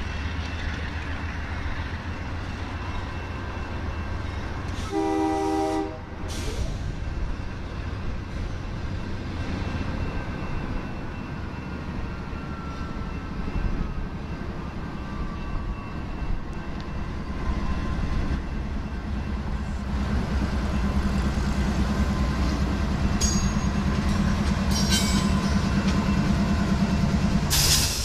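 Diesel freight locomotives rumbling as they pull a double-stack intermodal train through a grade crossing. There is one short horn blast about five seconds in and a faint falling wheel squeal partway through. The engine rumble grows louder in the last third as the locomotives come close.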